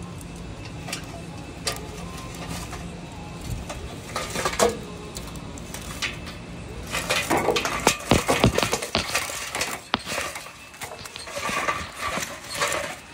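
Lit charcoal briquettes being poured from a metal chimney starter: a few clicks, then a dense run of clattering and clinking from about seven seconds in as the coals tumble out against the metal and the grill grate.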